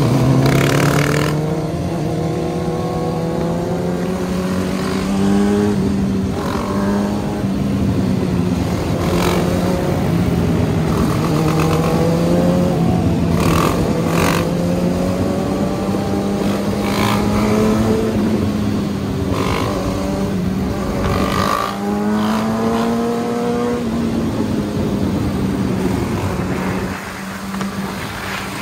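Motorcycle engines running at freeway speed: a steady engine note whose pitch rises and falls a little as the throttle is worked during wheelies, with several brief bursts of rushing noise.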